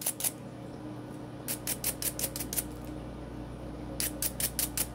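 Stiff-bristled cleaning brush scrubbing a pistol's guide rod and recoil spring, working crud out from between the spring coils. Quick back-and-forth scratching strokes, several a second, come in three short runs with pauses of about a second between them.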